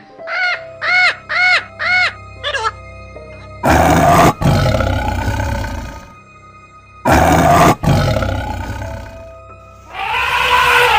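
A green-winged macaw squawking about six times in quick succession, then a tiger roaring twice, each roar long and loud, with another animal call near the end, all over background music.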